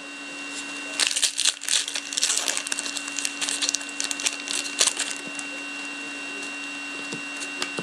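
A foil trading-card pack crinkling and tearing as it is ripped open by hand: a run of crackling rustles for about four seconds, starting about a second in, then dying down.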